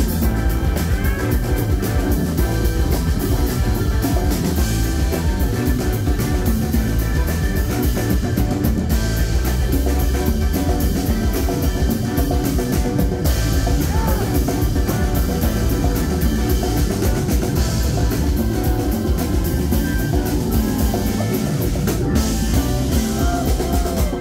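Live rock band playing loudly and without pause: drum kit keeping a steady beat under electric guitar and Hammond organ.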